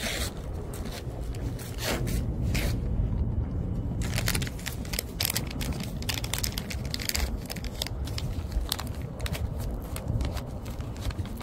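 A dog crunching a dry treat, a run of irregular crackly crunches, over a steady low wind rumble on the microphone.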